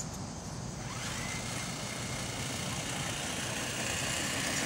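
Small wheeled robot's drive motor whining, rising in pitch about a second in as the robot sets off, then holding a steady high whine over a constant hiss.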